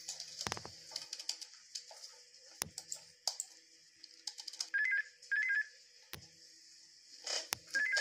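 Computer keyboard typing in scattered clicks, then an office desk telephone ringing: a trilling double ring about five seconds in, repeated near the end.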